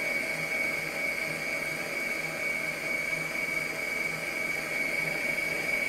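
Electric stand mixer running steadily, its motor giving a high whine, as it beats cake batter while flour is added a little at a time. A faint low pulse comes about once a second.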